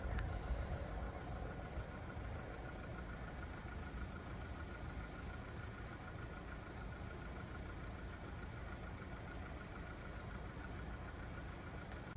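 Low, steady engine rumble of an idling diesel engine, with a faint steady high-pitched tone over it.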